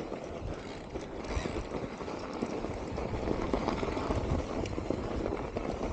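Mountain bike riding down a snowy trail: tyres running over packed snow with a steady rumble, and the bike rattling and knocking irregularly over bumps.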